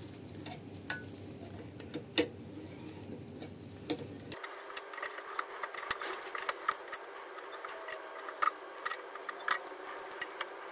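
Small metallic clicks and taps of pliers and steel parts as the collar is worked onto the top of a Kugelfischer warm-up regulator held in a vise. The clicks are sharp and irregular, coming more often in the second half.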